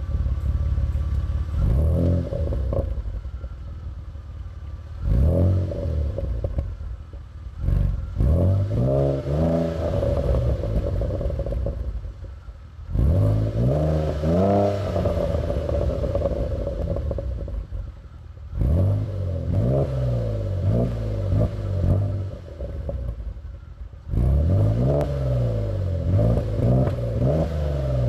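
Opel Vectra OPC engine through a full straight-through 76 mm exhaust, revved again and again from idle, the pitch rising and falling back each time in short blips and longer pulls.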